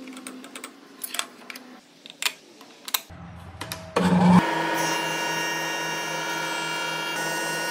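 Light clicks and handling knocks, then about four seconds in a spindle moulder (shaper) with tongue-and-groove cutters starts up and runs at speed with a steady whine of many tones.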